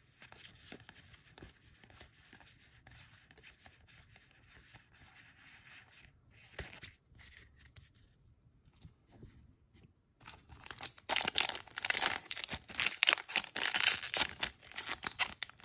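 Foil wrapper of an Ikoria booster pack being torn open and crinkled, a loud dense crackling from about ten seconds in. Before that, faint sliding and rubbing of playing cards being flipped through in the hands.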